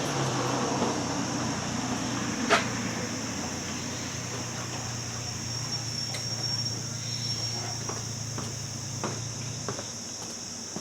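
A few sharp, faint clicks of the screw and motor cover being handled during reassembly of a fan motor, over a steady low hum and a thin high whine.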